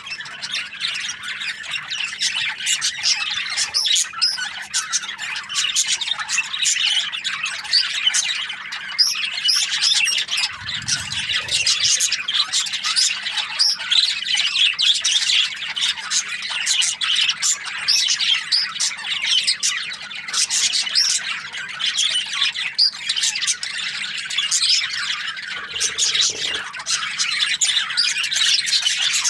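A flock of budgerigars chattering and squawking continuously, many overlapping chirps and warbles at once.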